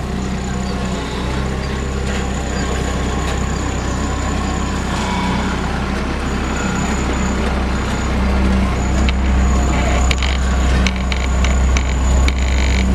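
Diesel engine of a Sakai SW502 tandem asphalt roller running steadily, growing louder about two-thirds of the way through as the roller passes close, with a faint high whine above the engine and a few knocks and rattles near the end.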